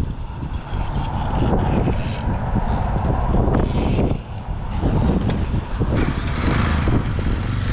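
Wind buffeting the microphone: a loud, uneven low rumble with gusts, dipping briefly about four seconds in.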